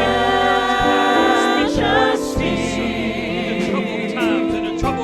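Church singing of gospel music, several voices singing together over sustained instrumental chords.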